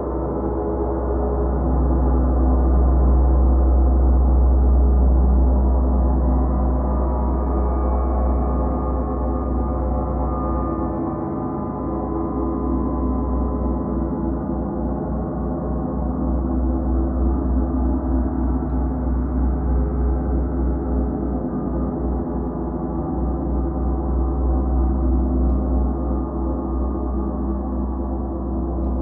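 Gongs played continuously in a gong bath: a dense, sustained sound of many overlapping ringing tones over a deep low hum. It swells in loudness a few seconds in, and again with a slight pulsing through the second half.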